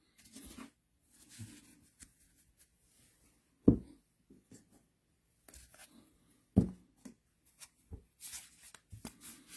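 Trading cards being handled on a table: faint sliding and rustling of cards, with two short soft thumps about four and seven seconds in as cards are set down.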